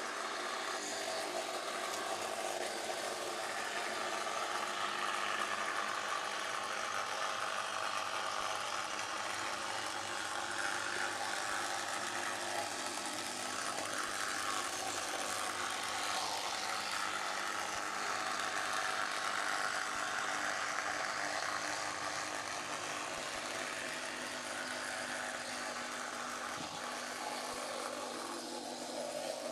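Bec-Kits electric motor drive of a motorised OO-scale Corgi Blackpool model tram, whirring steadily as the tram runs along the track.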